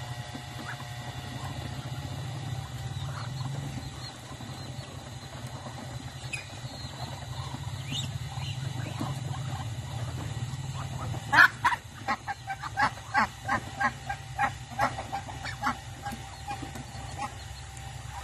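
Farmyard poultry (Muscovy ducks and chickens) calling while feeding: scattered faint calls, then about eleven seconds in a run of about a dozen loud, short honking calls, roughly three a second, for some four seconds.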